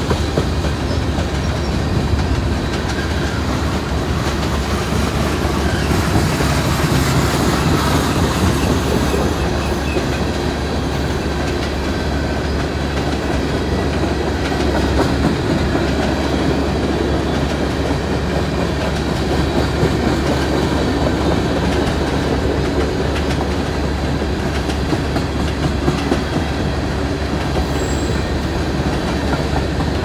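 Freight train of tank cars and covered hoppers rolling past close by: a steady noise of steel wheels running on the rail, clicking over the joints.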